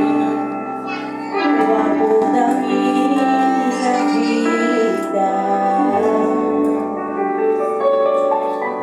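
Music: a song with voices singing sustained notes over instrumental accompaniment.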